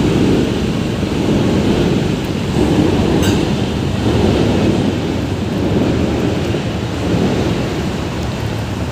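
Steady low rumble of a moving river cruise boat heard from its open deck: wind buffeting the microphone over the ship's engine and water wash. There is a brief click about three seconds in.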